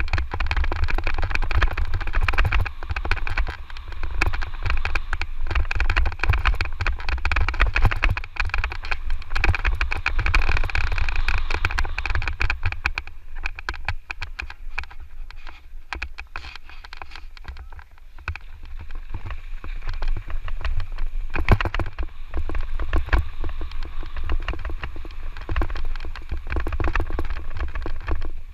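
Electric mountain bike ridden fast down a rough dirt trail: wind rumbling on the microphone, with constant rattling and knocking as the bike goes over bumps. The rattling eases off in the middle and picks up again.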